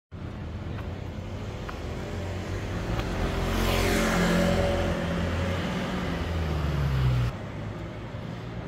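A motor vehicle passing close by: engine and tyre noise swell to a peak about four seconds in with the pitch falling as it goes past, then the sound cuts off suddenly about seven seconds in.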